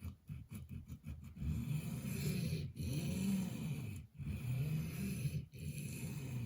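Wharncliffe blade of a GEC #38 pocketknife scraping across a sharpening stone while a burr is being worked up: a quick run of short strokes in the first second and a half, then slower strokes about every second and a half.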